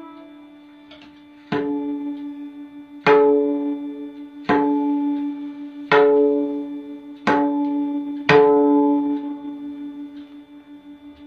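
Right-hand tabla (dayan) tuned to D in the low octave, struck six times about every one and a half seconds. Each stroke rings with a clear, held pitch that fades slowly.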